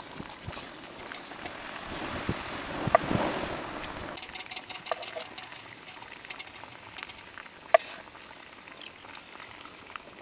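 Faint sizzling hiss of cooking on a hot tawa, swelling a couple of seconds in and then settling, with a few sharp clicks of a utensil.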